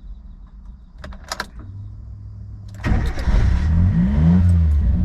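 Car engine starting: a few clicks about a second in, then the engine catches with a burst of noise near three seconds, revs up and back down, and settles into a steady idle.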